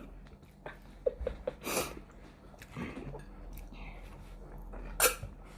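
People chewing spicy fried chicken wings, with small wet mouth clicks and lip smacks and two short, hissing breaths, one about two seconds in and one near the end.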